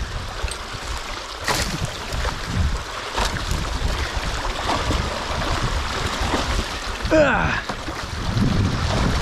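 Water rushing through a freshly opened breach in a beaver dam, with a steady wash and low rumble, and a few sharp clicks as the tool works the sticks and debris. About seven seconds in, a short falling voice-like grunt.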